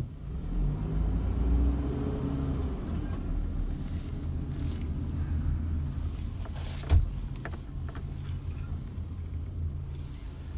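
2013 Mazda Bongo truck's engine running as the truck pulls away and drives slowly, heard from inside the cab, with one sharp thump about seven seconds in.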